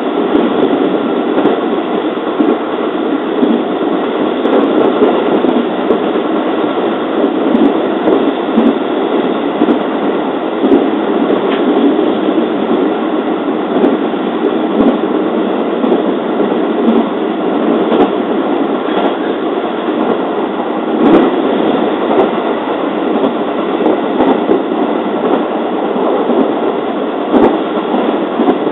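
Running noise inside a JR 205 series electric commuter train at speed: a steady rumble of wheels on rail, with a few sharp clicks along the way.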